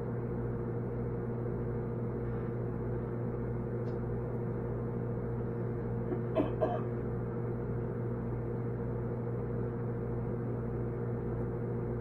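Microwave oven running with a steady hum. About halfway through come two brief pitched blips, a fraction of a second apart.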